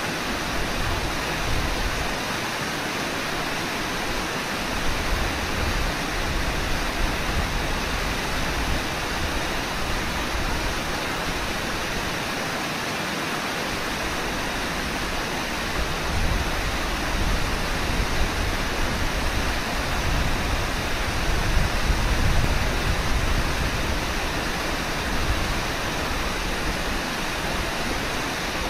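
Steady rush of river water running over rocks and riffles, with a low rumble that swells and fades.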